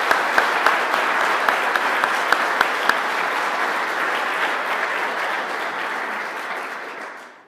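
An audience applauding, with a few loud nearby claps standing out over the crowd in the first three seconds. The applause fades out near the end.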